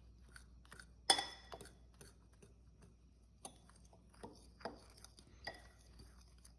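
Faint, scattered clinks and taps of a utensil against a mixing bowl while stirring a dry flour and Cheeto-dust coating mix, the loudest about a second in.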